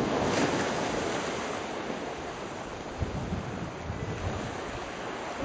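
Steady wash of surf on a sandy beach, with wind buffeting the microphone in low rumbles and a few thumps.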